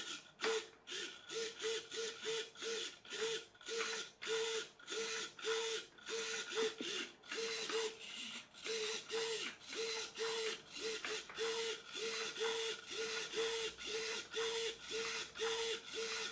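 Small hobby RC micro servo whirring in short bursts, about two or three a second, as it swings the boat's rudder back and forth during a test of the steering.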